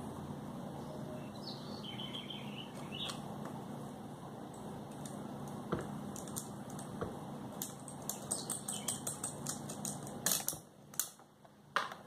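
A screwdriver working the screws of a wall fan's motor housing as the motor is opened. Small metal clicks and taps of the tool and parts are handled, turning to a quick run of ticks in the last few seconds, with two louder clicks near the end, over a steady low hum.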